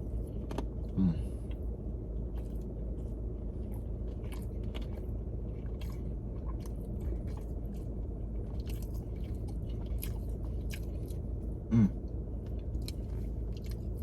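A man chewing food: many small, quick mouth clicks as he eats, over a steady low hum. Twice a short hum of the voice breaks in, about a second in and near the end.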